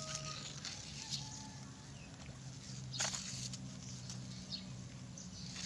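Rural outdoor ambience: a low steady hum with scattered faint bird chirps, and a sharp click about three seconds in.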